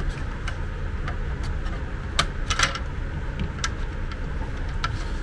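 Light clicks and knocks of a screwdriver and a plastic aspirator housing being handled on a workbench, scattered irregularly, with the sharpest knocks a little after two seconds in, over a steady low hum.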